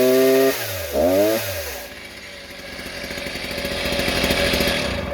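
Stihl 08S 55 cc two-stroke chainsaw engine being blipped on the throttle: its pitch shoots up, holds at high revs for about half a second, blips once more, then drops back to idle about two seconds in. It falls away right at the end.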